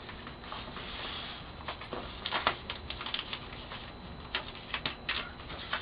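Adhesive vinyl mask being peeled off its backing paper by hand, giving scattered small crackles and paper rustles, more of them about two seconds in and again in the last couple of seconds.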